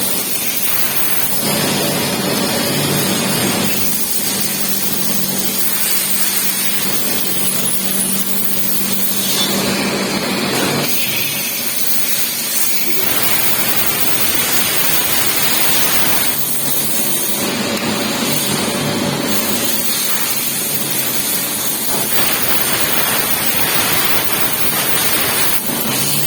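Machine tool running in a metalworking shop, a steady noisy hiss with an underlying hum that swells and eases every few seconds.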